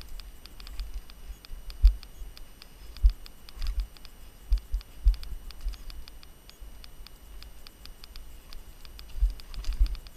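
Mountain bike rolling down a rough dirt singletrack trail: a fast, irregular rattle of clicks and ticks from the bike, with heavy low thumps as it jolts over bumps, the hardest about two seconds in.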